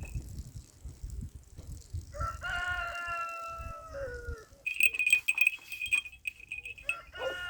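Two long drawn-out animal calls, each falling in pitch at the end, with a small bell jingling rapidly between them.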